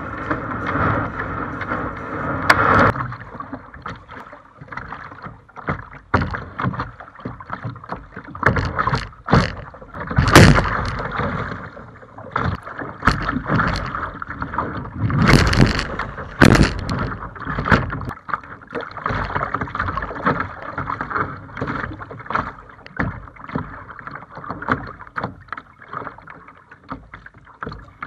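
Water slapping and splashing against a stand-up paddle board, close to the microphone on the deck, with irregular knocks and splashes from the paddle strokes. The biggest splashes come about ten seconds in and again around fifteen seconds in.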